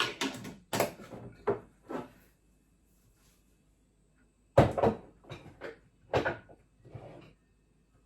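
Knocks and clunks from kitchen items being handled and put away, in two groups with about two seconds of quiet between them.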